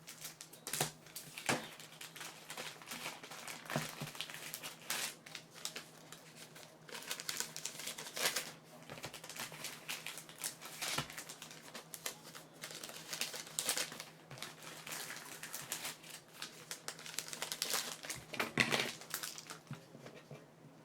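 Plastic wrapping of trading-card boxes and packs being crinkled and torn open by hand, with cards shuffled: an irregular run of crackles and rustles, sharp and clicky, with no steady rhythm.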